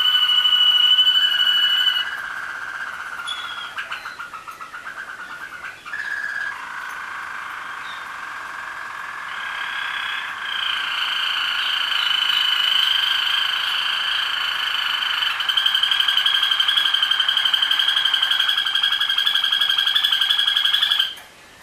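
Waterslager (Malinois) song canaries singing in long rolling and bubbling trills, each held on a steady pitch. The song changes its tour every few seconds and breaks off suddenly near the end.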